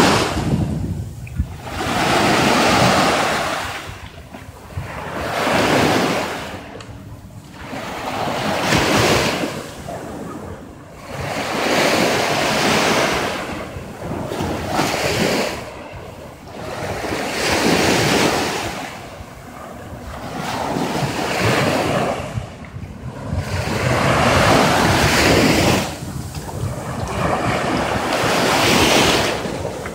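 Small waves breaking and washing up a sandy beach close by, each wash swelling and fading about every three seconds.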